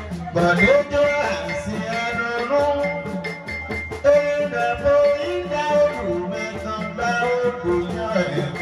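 A man singing a melody with long held notes through a microphone and amplification, over steady repeating percussion: Beninese gohoun music.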